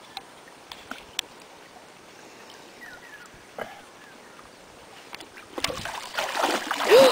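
A large carp thrashing in shallow water as it breaks free from the angler's grip on a wet unhooking mat, setting off loud splashing and sloshing about five and a half seconds in. Before that only a few light taps over low background. The splashing is the fish escaping back into the lake.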